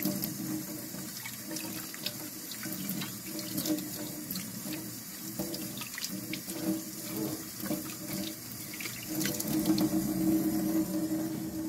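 Kitchen faucet running onto a jar lid held under the stream in a stainless steel sink, rinsing out baking-soda paste, with small splashes throughout. A little louder near the end.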